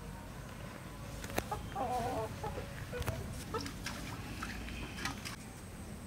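Domestic hens clucking, with a short run of wavering calls about two seconds in and a few brief clucks after, among scattered light clicks and taps.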